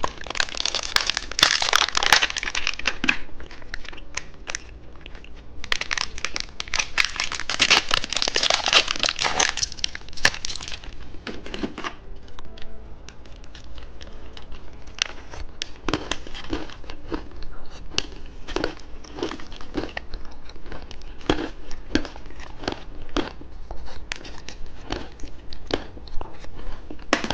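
Plastic candy wrappers crinkling and tearing as they are handled and opened, in two long stretches over the first ten seconds, followed by scattered short clicks and rustles.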